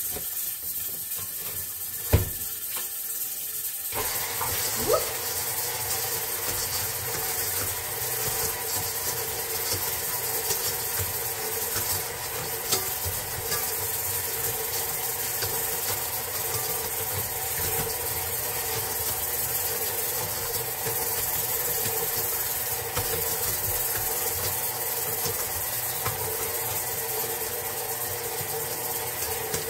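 A sharp knock about two seconds in, then a KitchenAid tilt-head stand mixer starts about four seconds in, briefly rising in pitch, and runs with a steady motor hum, its flat beater mixing a heavy ground beef meatloaf mixture in the steel bowl.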